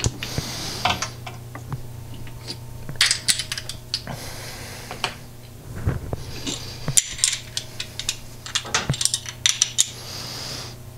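Metallic clinks and clicks of a cylinder hone's stone holder being handled while its honing stones are changed for the next grit, over a steady low hum.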